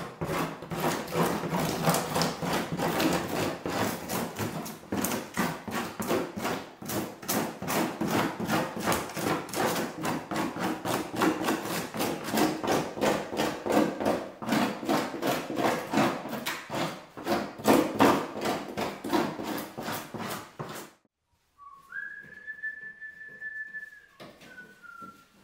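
Knife blade scraping the surface of white birch bark in quick, steady strokes, taking off moss and loose flakes of bark. About three-quarters of the way in the scraping stops abruptly. A single steady whistle follows, held for a couple of seconds and dipping slightly in pitch at its end.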